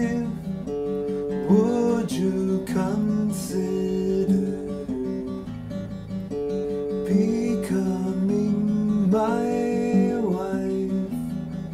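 A 1970s Guild D-25 dreadnought acoustic guitar, strummed and picked in a steady instrumental passage, with some notes sliding in pitch.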